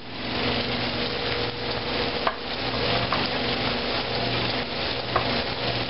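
Battered walleye pieces frying in hot oil in a cast iron skillet: a steady sizzle with a few small pops.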